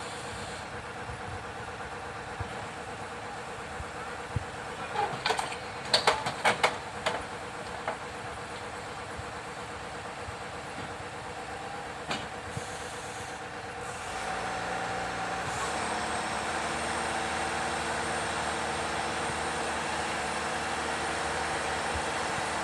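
Heavy diesel machinery engine running steadily, becoming louder about fourteen seconds in as it works harder, with a few sharp knocks around six seconds in.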